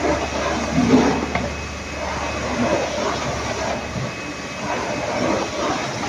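Paper-pulp moulding V-grooving machine running: steady mechanical noise with irregular clattering over a low hum, the hum dropping away about four seconds in.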